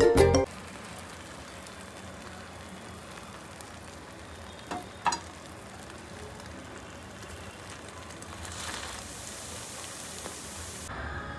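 Background music cutting off about half a second in, then a steady, even hiss of ambient noise with two faint clicks about five seconds in.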